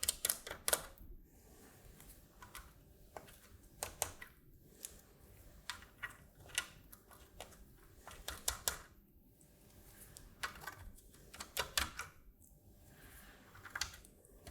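Irregular light clicks and taps of small hardware being handled as M4 nylon nuts are threaded finger tight onto machine screws through the circuit board and acrylic plate.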